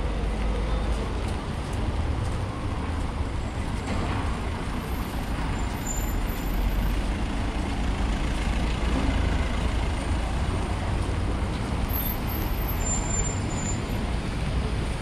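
Street traffic noise: a steady low rumble of motor vehicles running nearby, with no single event standing out.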